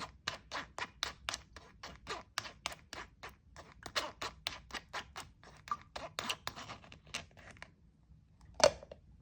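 Quick, regular scraping strokes, about four a second, as mashed banana pulp is worked through a kitchen strainer to press out the liquid, stopping near the end, followed by one sharp knock.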